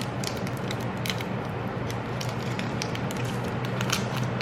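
Wrapper of a Nestlé Aero mini chocolate bar being opened by hand: irregular crinkling clicks and crackles.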